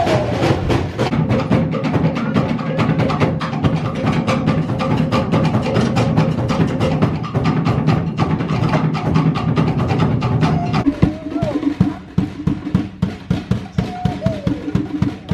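Fast percussion music: Polynesian-style drumming, sharp wooden knocks over a deeper drum beat. About eleven seconds in, the rhythm thins to about four clear strikes a second.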